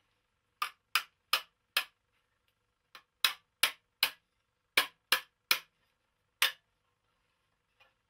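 Small hammer tapping on a sheet-metal carnyx section: about a dozen sharp metallic knocks in short groups of three or four, with brief pauses between, stopping about six and a half seconds in.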